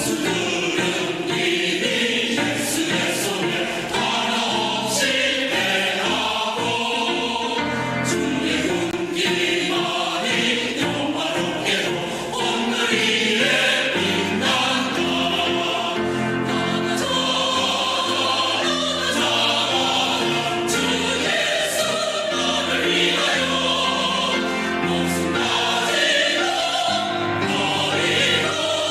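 A church choir singing a hymn in parts over a steady instrumental accompaniment.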